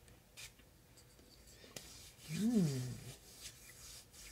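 Soft rubbing of hands working dry body oil into the skin, with a few faint clicks. About two and a half seconds in comes a woman's short approving "mmm" hum that rises and falls in pitch.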